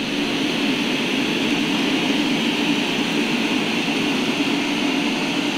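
Eufy RoboVac X8 robot vacuum running, its twin-turbine suction fan giving a steady whir with a low hum, as it sweeps up scattered rice and chips on a hardwood floor.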